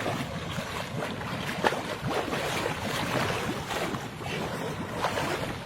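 Floodwater sloshing and moving around a street drain, an irregular watery noise with no steady tone.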